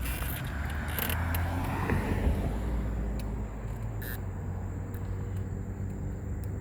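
A car drives past, swelling and then falling in pitch over the first two or three seconds, over a steady low rumble of road traffic, with a few light clicks.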